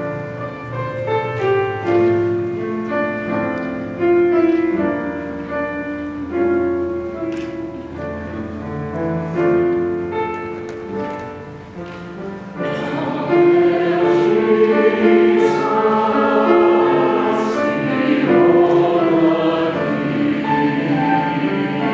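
Piano introduction of an SATB choral anthem. About halfway through, a mixed choir comes in singing with the piano, and the sound becomes fuller and louder.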